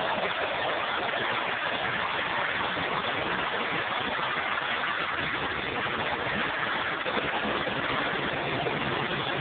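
Aircraft engine noise from a plane performing aerobatics overhead: a steady rushing noise with no clear engine tone.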